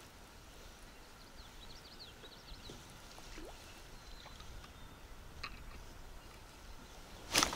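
Quiet outdoor lake ambience with a few faint, quick bird chirps, and a single sharp knock just before the end.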